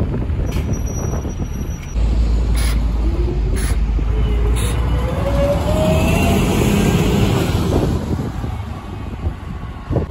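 Single-deck bus pulling away and passing close by, its engine running loud with a whine that rises in pitch as it picks up speed. A few short sharp clicks come early on, and the sound drops away near the end as the bus moves off.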